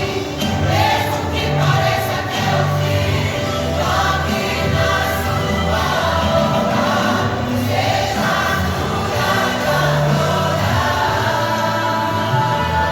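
A church vocal group singing a gospel hymn together, with sustained low accompanying notes underneath.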